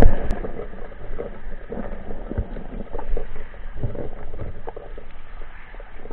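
Underwater noise picked up through a camera housing: a steady low rumble of moving water with scattered light clicks and knocks, after a short loud rush of water right at the start.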